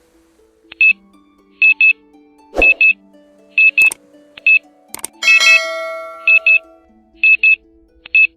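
Digital timer alarm: pairs of short high electronic beeps, about once a second, starting about a second in. Soft background music runs underneath, with a bell-like chime ringing out near the middle.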